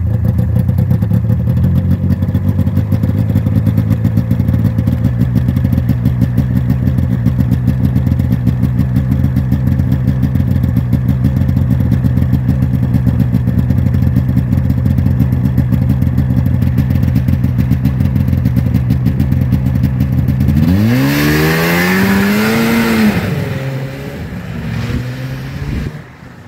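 Yamaha V Max 500 XT snowmobile's 500cc twin-cylinder two-stroke engine, just started for the season's first run, idling steadily. About twenty seconds in it revs up sharply in rising and falling pitch as the sled pulls away, and the sound fades as it moves off.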